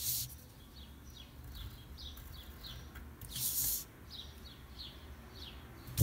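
Pencil drawing on paper: scratchy strokes, with a louder, longer stroke about three and a half seconds in. Alongside it runs a series of short, faint, falling high chirps, about two a second.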